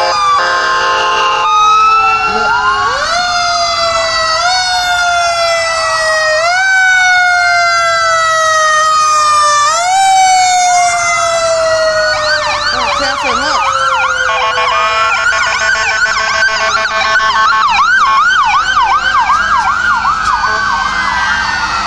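Several emergency-vehicle sirens sounding at once from a passing ambulance and fire trucks: repeated rising wails, one long tone slowly falling in pitch, and fast yelping sweeps in the second half. Steady horn blasts come at the start and again about two-thirds of the way through.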